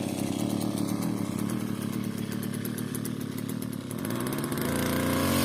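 Brush cutter's small engine running steadily, then revving up near the end.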